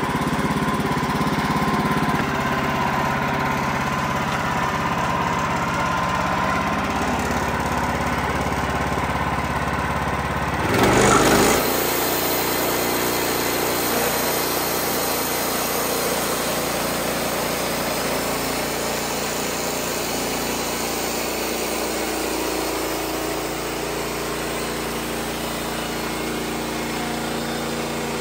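An engine running steadily. About eleven seconds in the sound changes abruptly to a Wood-Mizer LX55 portable band sawmill running as it saws a pine log into boards, a steady engine drone.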